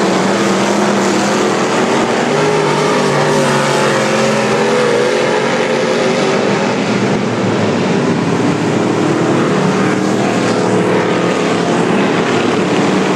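Several modified hobby stock race car engines running at once, loud and steady, with more than one engine note overlapping and one rising slightly about four seconds in.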